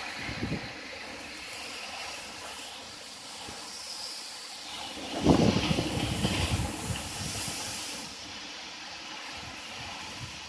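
Steady hiss of heavy rain, with a sharp crack of thunder about five seconds in that rumbles on for a couple of seconds before fading back into the rain.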